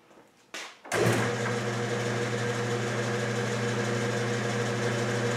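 Enco metal lathe starting up about a second in and then running steadily with an even motor and spindle hum, its three-jaw chuck spinning free on the machine's first run.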